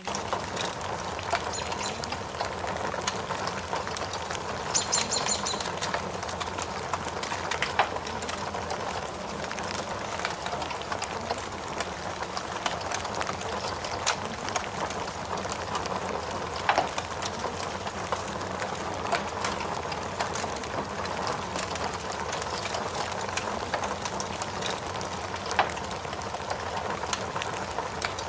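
Rain and fire ambience: a steady hiss of rain with the scattered sharp crackle of a wood fire, and a brief high chirp about five seconds in.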